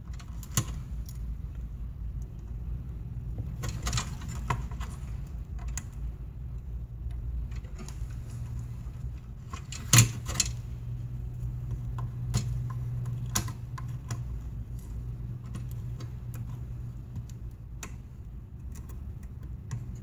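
Light metallic clicks and taps of a soldering iron, tweezers and component leads being handled on a circuit board, irregular, with the sharpest click about halfway through, over a steady low hum.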